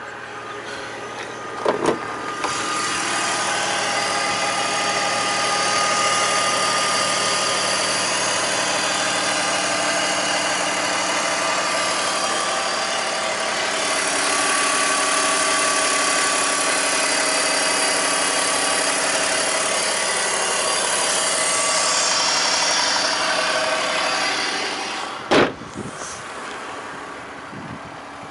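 A 2003 BMW X5's engine idling steadily, heard close with the bonnet open; it ticks over smoothly with no knocks. A single sharp thud near the end, after which the engine sounds quieter.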